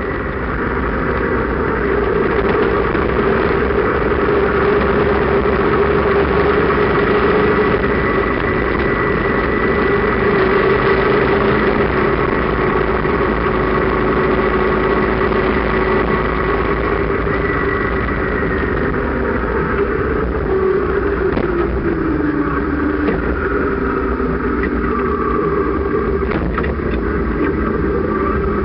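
Sidecar motorcycle's engine running at a steady road speed, mixed with wind and road noise. About two-thirds of the way through the engine note drops as the rig slows, then rises again near the end.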